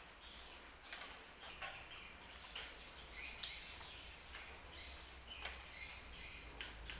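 Close-miked chewing and eating of fried rice: irregular small wet mouth clicks and smacks, with no speech.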